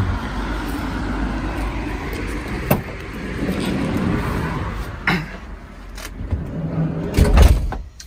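Traffic noise from the street, then knocks and clunks as the camper van's sliding side door is handled, ending in a loud thump near the end, after which the street noise drops away.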